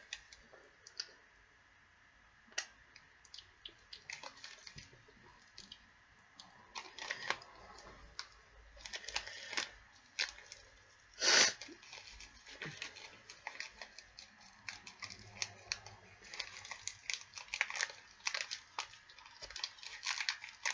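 Plastic snack wrapper crinkled and picked at by hand as it is worked open: a run of small irregular crackles and clicks, with one louder crackle about eleven seconds in.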